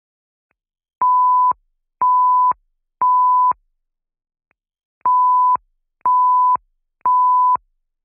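Fire alarm temporal-three evacuation signal: two groups of three steady beeps at about 1 kHz, each about half a second long, with a longer pause between the groups. It is played back from a recording after a band-stop filter has been applied to remove the alarm's high-pitched sound.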